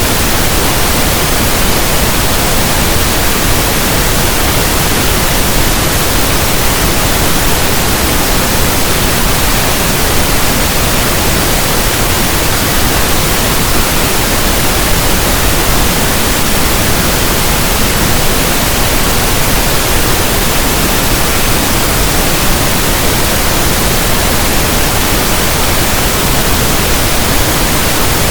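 Steady, loud pink noise: an even static hiss like a radio tuned between stations, unchanging throughout.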